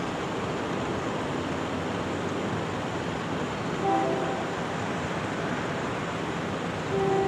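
Safetran mechanical crossing bells clanging rapidly and continuously at an active grade crossing. A horn chord, fitting an approaching train's horn, sounds briefly about four seconds in and again near the end.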